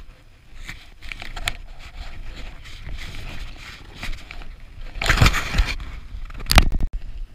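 Crunching and scraping in packed snow from someone moving along with ski poles, with low wind rumble on the microphone. Two louder rushes of noise come about five and six and a half seconds in.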